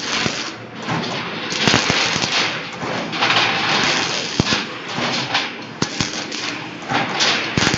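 Rebar cage welding machine welding, with a dense, irregular crackle and spatter. Now and then there is a sharp metallic click or clank.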